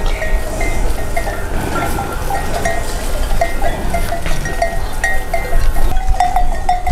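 Bells on a flock of sheep and goats clinking irregularly as the animals move, over a steady low rumble.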